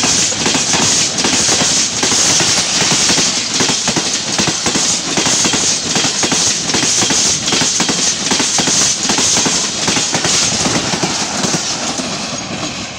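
Express train's passenger coaches passing close by at speed: a loud rush of wheel and track noise with a rapid clatter of wheels over the rail joints. Near the end the noise falls away as the last coach passes.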